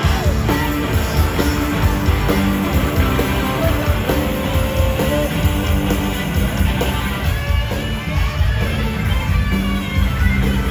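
Live rock band playing loud, led by electric guitar over bass and drums. The heavy low end kicks in right at the start.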